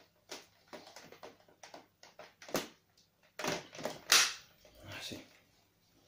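Plastic clicks and knocks from the body and dust container of a PUPPYOO WP521 handheld vacuum cleaner as it is handled and taken apart, with the motor off. The clicks are irregular, and the loudest comes about four seconds in.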